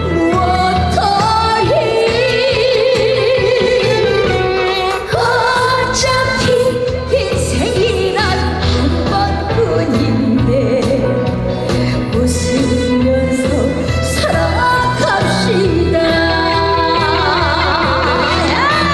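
A woman singing a trot song live with a band accompaniment: a wavering, ornamented vocal line over a steady beat and bass.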